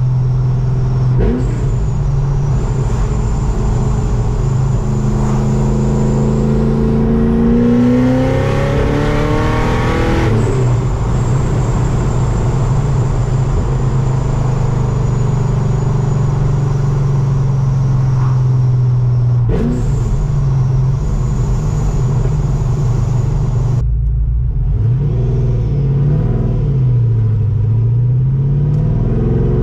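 Supercharged LS7 V8 of a C6 Corvette Z06 driving, with a thin high supercharger whine over the engine. The revs climb in a rising pull about five to ten seconds in. The note changes abruptly about twenty and twenty-four seconds in, then the pitch sags and climbs again near the end.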